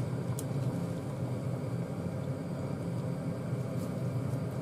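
Steady low hum of a kitchen fan running, with a couple of faint clicks.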